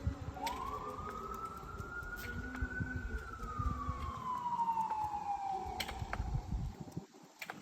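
Emergency vehicle siren wailing: a long wail that rises quickly, peaks about three seconds in, then slowly falls, heard from inside a moving vehicle over low road rumble that drops away near the end.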